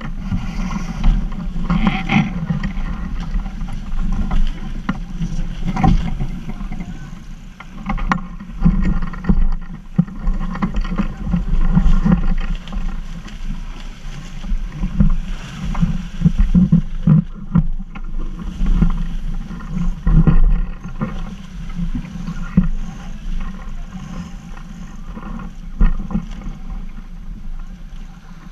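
Water rushing and splashing along the hull of a Half Ton class racing yacht sailing fast, swelling and fading with the waves, with a few sharp knocks.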